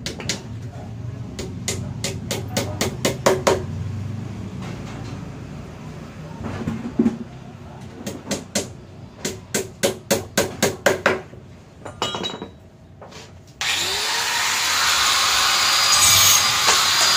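Two runs of quick, evenly spaced tool strokes, about four a second. Then, about 13 seconds in, a machine starts suddenly with a loud steady rushing noise, its motor pitch climbing briefly and then holding steady.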